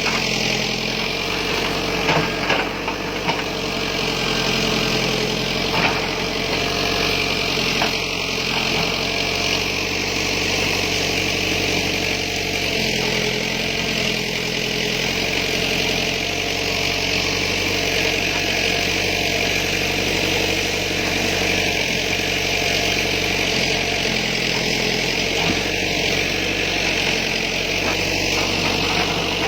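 Backhoe's diesel engine running steadily, with a few short knocks in the first eight seconds.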